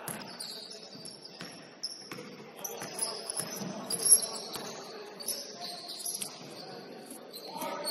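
Basketball game sounds in a gym: a ball bouncing and striking, sneakers squeaking on the hardwood in short high squeals, and voices in the background. The loudest moment is a sharp hit about four seconds in.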